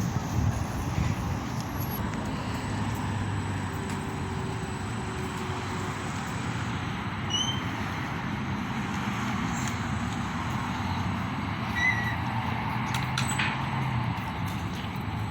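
Steady outdoor background noise: a low, continuous traffic-like rumble and hum, with a few brief high chirps about halfway through and again a little later.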